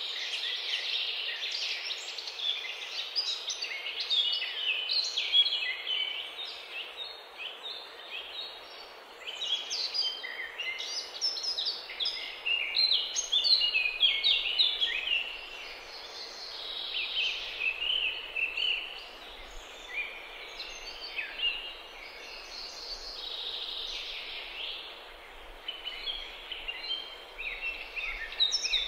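Many small songbirds singing and chirping at once, high overlapping trills and chirps with no break, over a steady background hiss.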